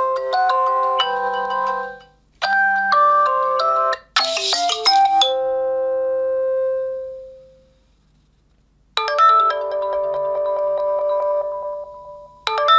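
Nokia 2.2 ringtones played one after another: short melodies of struck, ringing notes, each cut off after a second or two. A brighter, shimmering tone comes in about four seconds in and fades away, then after a short silence a new tune starts about nine seconds in and another near the end.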